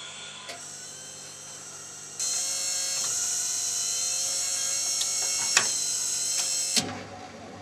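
Rock-ola Tempo II jukebox mechanism whirring with a few clicks. It starts about two seconds in and cuts off with a click near the end, typical of the record-changer cycling.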